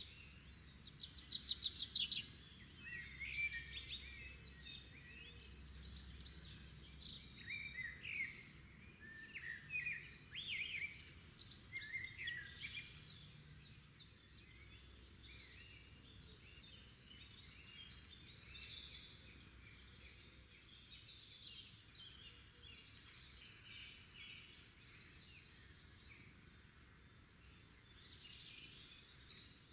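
Spring morning birdsong: several songbirds singing and chirping at once, busy in the first half, thinning to a softer background chorus after the middle.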